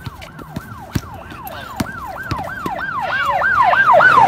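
Emergency vehicle siren in a fast rising-and-falling yelp, about three to four cycles a second, growing louder toward the end. A basketball bounces on the court a few times underneath it.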